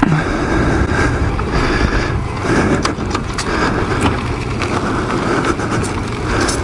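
Old twin-cylinder motorcycle running steadily as it rolls along, under wind and road noise on the camera.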